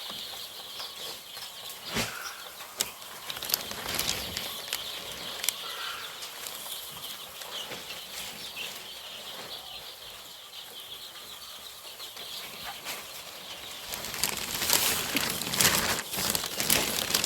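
A flock of five-day-old layer chicks peeping continuously, with scattered light clicks. A rustling scuffle grows louder over the last few seconds.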